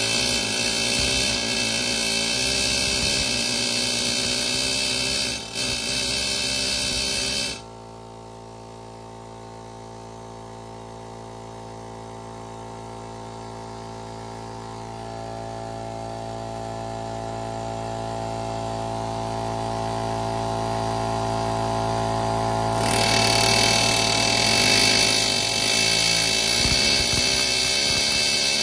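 Pneumatic air chisel hammering at a car wheel that is seized on its hub, running hard for about seven and a half seconds and then stopping. The air compressor keeps running with a steady hum that slowly grows louder, and the air chisel starts again about 23 seconds in.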